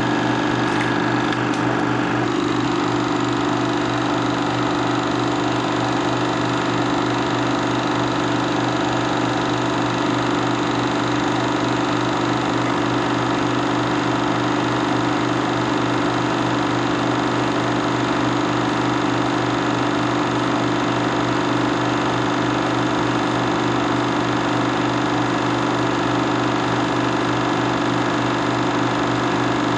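A 16mm film projector running as the reel plays: a loud, steady mechanical drone with a fixed hum and hiss that does not change.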